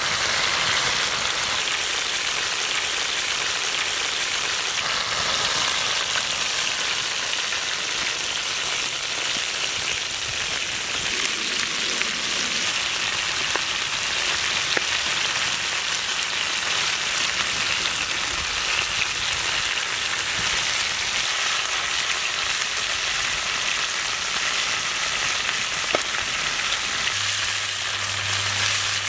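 Marinated chicken drumsticks sizzling steadily in fat on a hot pan as they are basted with butter.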